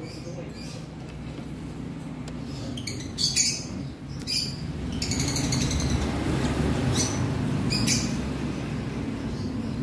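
Lovebirds giving short, high chirps, about four scattered through a few seconds, over a steady low background noise.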